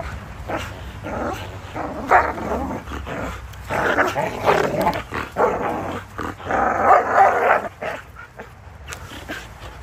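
Two Belgian Malinois growling in play as they wrestle and tug at a hanging rope toy, in rough bursts that are loudest about two, four and seven seconds in and die down near the end.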